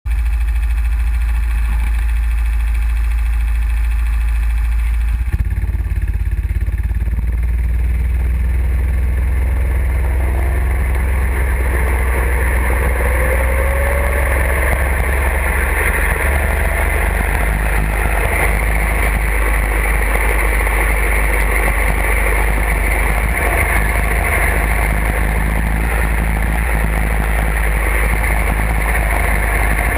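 Go-kart engine heard from on board the kart: running steadily at first, then changing about five seconds in as the kart pulls away. The engine note climbs as it accelerates, and it keeps running at speed around the track after that.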